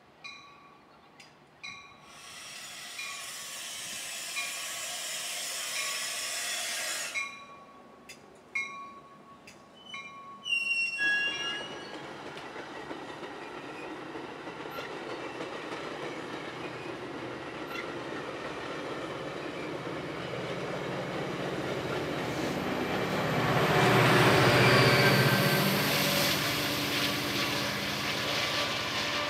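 Metra bilevel commuter train passing close by, with a bell dinging over and over for the first ten seconds or so and a short high wheel squeal at about eleven seconds. The rumble and clatter of the cars then build steadily, loudest with the low diesel engine note as the locomotive at the rear goes by near the end.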